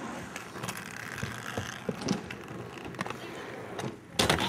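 Skate wheels rolling over concrete, with small clicks and rattles as they cross seams. Near the end a sudden loud scrape and knocks as the skater hits the ledge.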